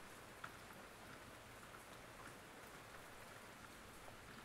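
Faint steady rain, with scattered small drop ticks and one slightly louder tick about half a second in.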